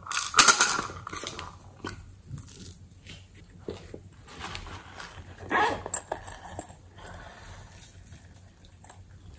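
Small plastic toy containers being picked up and handled, with an irregular run of clicks and rustles. There is a louder rattling rustle about half a second in and another just past halfway. Near the end the sounds turn to softer contact as a piece is pressed into the slime.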